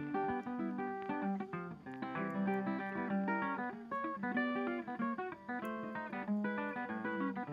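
Background music: a guitar picking out a run of plucked notes.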